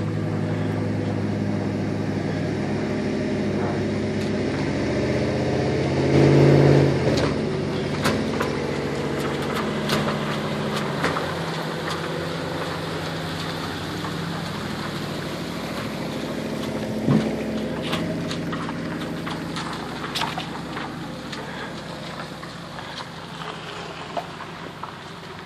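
Pickup truck engine hauling a loaded boat trailer up a ramp, running steadily under load with a louder surge about six seconds in. Scattered knocks and rattles follow, and the engine sound fades toward the end.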